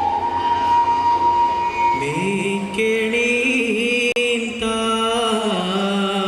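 Dance music from Kerala: a held flute note, then, about two seconds in, a singer comes in with long, drawn-out, chant-like notes.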